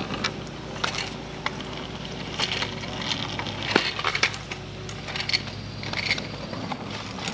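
Cheap fold-up kick scooter rolling on asphalt, its small wheels giving a steady rumble, with scattered rattling clicks and clacks from the loose folding frame. One sharper clack comes a little past the middle.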